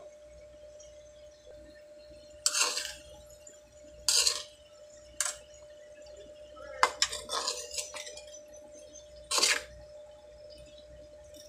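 Metal ladle scraping and clinking against a wok as it tosses fried sweet potato sticks. The strokes come a second or two apart, with a quick cluster in the middle, over a faint steady hum.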